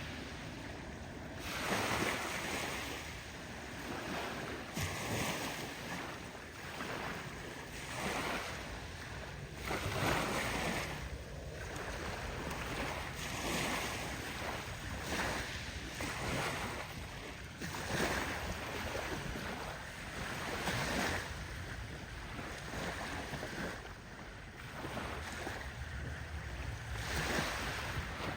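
Waves washing onto a beach shore, swelling and falling back every second or two, with wind buffeting the microphone.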